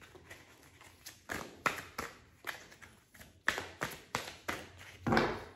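A tarot deck being shuffled overhand in the hands, the cards slapping and tapping together in an irregular string of sharp clicks, with a louder thump about five seconds in.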